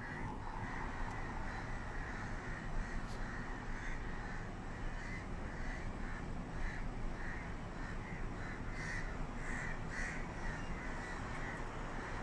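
Birds calling outside in a long run of short, repeated calls, over a steady low background rumble.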